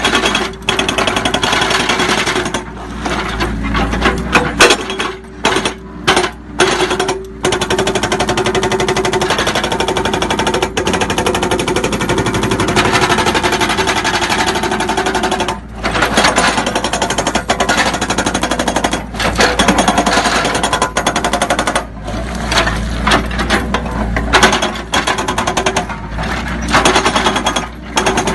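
Hammer SB 400 hydraulic breaker hammering its chisel into rock. The rapid blows come in long runs, broken by several short pauses where the hammering stops and restarts.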